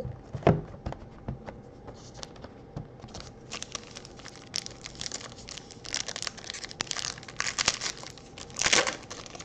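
A trading-card pack wrapper being crinkled and torn open by hand: a long run of crackling rustles from about three seconds in, loudest near the end. A few light knocks come first, as the cardboard box is folded shut.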